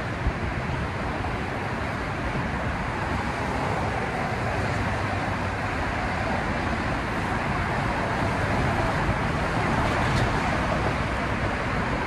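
Steady noise of busy multi-lane road traffic passing close by, an even rush of tyres and engines with no single vehicle standing out.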